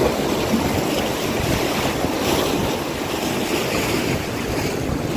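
Sea waves washing against the rocks of a breakwater, with wind blowing across the microphone: a steady rushing noise.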